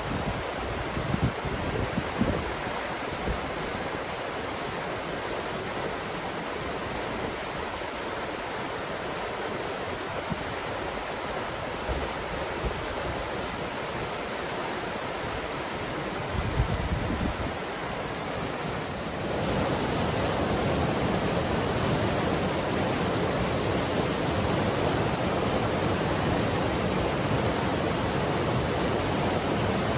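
River water rushing steadily, with wind gusting on the microphone near the start and again around the middle. The rush gets louder and fuller about two-thirds of the way in.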